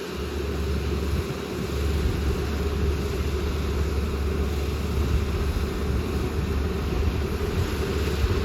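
Rice combine harvester running steadily close by, a dense low mechanical drone.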